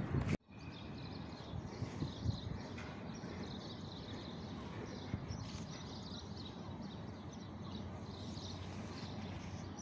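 Outdoor city ambience: a steady low background hum with birds chirping again and again in short high calls.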